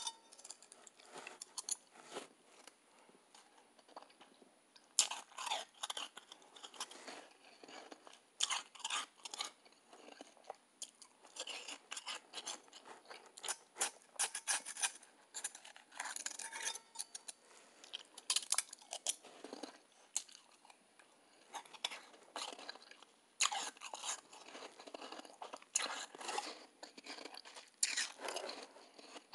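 Close-up crunching and chewing of mouthfuls of soft, fluffy ice, in crackly bouts every couple of seconds.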